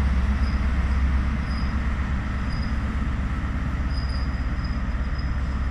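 InterCity 125 diesel train with Class 43 power car 43162 nearest, pulling away: a steady low diesel rumble that eases slightly as it recedes, with faint short high squeaks from the wheels on and off.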